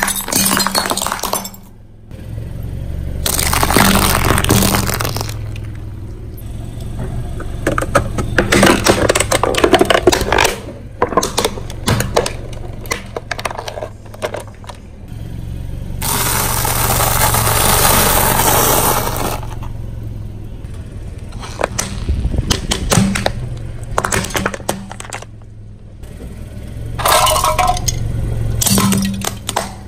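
Car tyre rolling over and crushing plastic toys: several bouts of loud cracking, snapping and crunching plastic, over a steady low hum.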